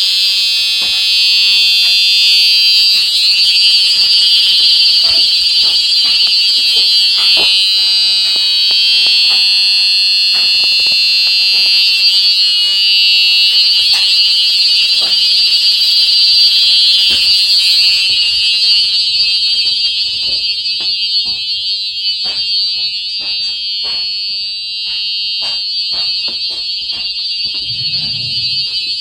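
Revere fire-alarm mini horn sounding a loud, steady continuous tone.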